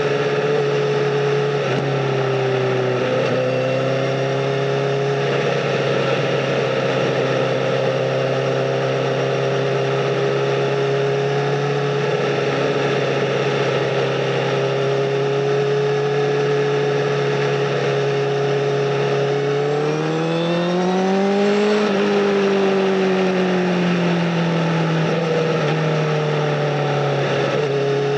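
Honda Fireblade SC59's inline-four engine through a Bodis aftermarket exhaust, running at a steady pitch under way. About twenty seconds in it revs up, then the pitch eases back down over the last few seconds.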